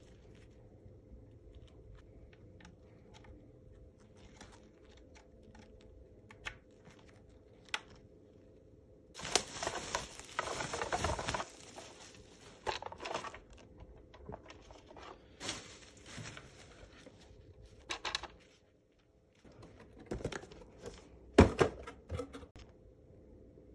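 Handling noise: scattered clicks and knocks, with about two seconds of louder rustling near the middle, over a faint steady hum.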